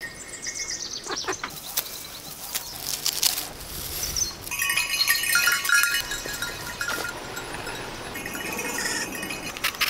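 Farm animals calling, with the calls clearest about halfway through, over the rustle and snap of fresh herbs being picked and handled.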